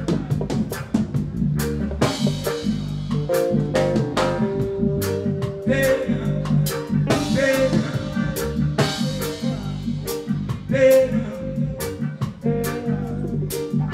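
Live roots reggae band playing: a drum kit striking a regular beat over a deep bass line and pitched chords.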